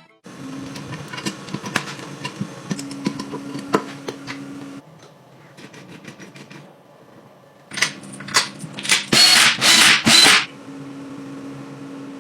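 Workshop tool sounds: sharp clicks and knocks over a steady low hum, then a run of loud hissing bursts about nine to ten seconds in.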